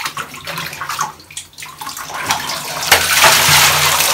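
Water splashing in a plastic basin, then from about three seconds in a steady rush of water as the basin is tipped and emptied.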